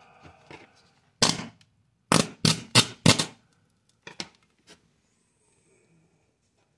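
Sharp crackling pops from a burning circuit board: one about a second in, then four in quick succession a second later, followed by a few fainter ones.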